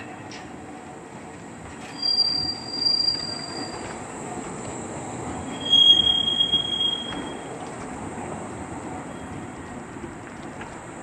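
Škoda 15T tram passing slowly, its steel wheels squealing on the rails: a high shrill squeal about two seconds in and a louder, lower one about six seconds in, over the steady rumble of the wheels on the track.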